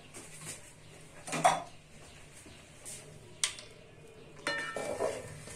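A few scattered knocks and clinks of cooking utensils against a metal pan and pot. The loudest knock comes about a second and a half in, a sharp click follows a couple of seconds later, and there is a short ringing clink near the end.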